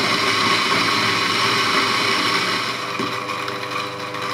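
A Eureka Mignon Specialita flat-burr espresso grinder running steadily as it grinds a dose of coffee beans. About three seconds in it gets a little quieter as the beans run out and the grinder runs on empty.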